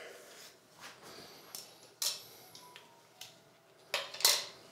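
A few sharp knocks and clatters of small hard objects being handled, the loudest two close together near the end.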